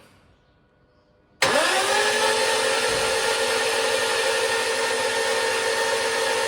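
An electric motor switches on about a second and a half in, spinning up within a fraction of a second to a steady, even whine with a rushing hiss.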